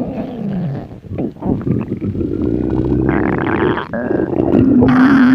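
Hungry stomach growling and gurgling, with drawn-out squeaky tones that glide in pitch; the longest and loudest growl comes near the end.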